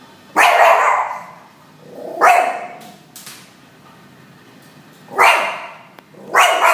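Small dog barking at hens: four loud, separate barks a second or more apart, the first the longest.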